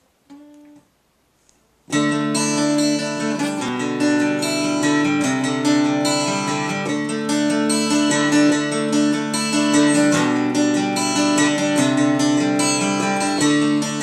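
Cutaway jumbo acoustic guitar played solo, notes ringing on in a continuous intro that starts about two seconds in, after a short faint tone.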